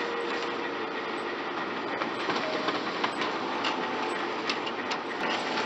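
Kyocera laser multifunction printer running a print job: a steady whir of its motors and rollers, with scattered clicks and ticks as paper feeds through and out to the tray.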